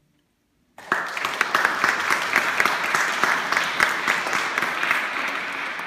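Audience applauding, breaking out suddenly about a second in after a moment of near silence.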